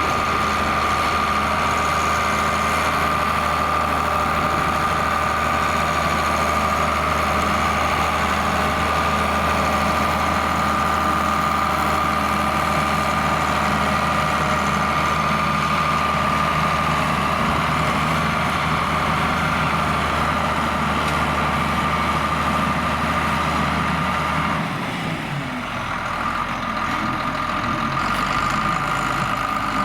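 John Deere 4850 tractor's six-cylinder turbo-diesel running steadily under load while ploughing, a deep engine hum with a constant high whine over it. About 25 seconds in the sound dips briefly and the low hum changes.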